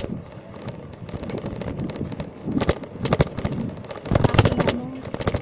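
Wind buffeting the microphone of a handlebar-mounted phone on a moving bicycle, with irregular knocks and rattles as the bike and phone mount jolt over the road. A heavier gust rumbles about four seconds in.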